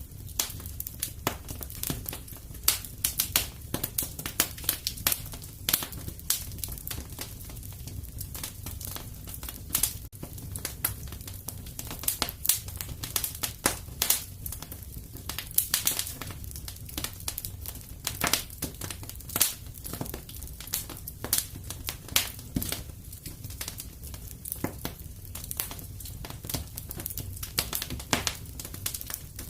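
Wood fire in a fireplace crackling: frequent irregular sharp pops and snaps over a low, steady rumble of the flames.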